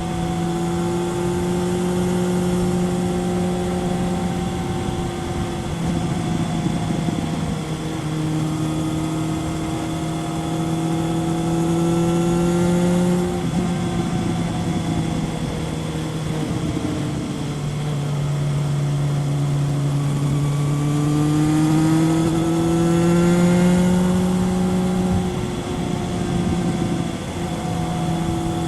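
2000 Kawasaki ZRX 1100's inline-four engine with a Yoshimura exhaust, heard onboard while riding over wind noise. The engine note climbs under throttle and drops back at each gear shift, several times. It makes its longest and highest pull about two-thirds of the way in.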